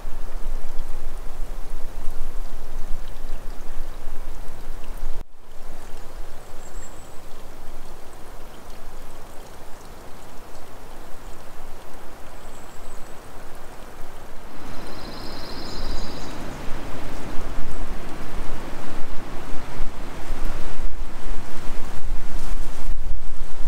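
Small woodland stream running over rocks, a steady rushing and splashing of water. A short high chirp about fifteen seconds in, and wind rumbling on the microphone near the end.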